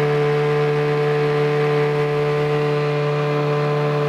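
A small engine running steadily at a constant speed: an even, unchanging hum with a strong pitch.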